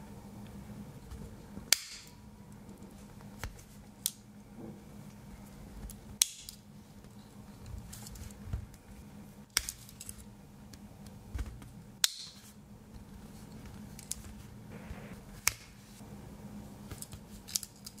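Tools of a Victorinox Angler Swiss Army Knife being opened and closed, each snapping against its backspring with a sharp metallic click, several times every few seconds, over a faint steady hum.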